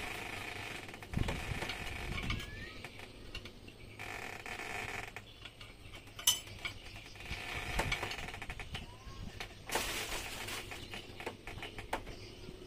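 Scattered light clicks and knocks of metal parts being handled and fitted on a Yamaha 15 hp outboard's lower-unit gearbox, with a short burst of noise about ten seconds in.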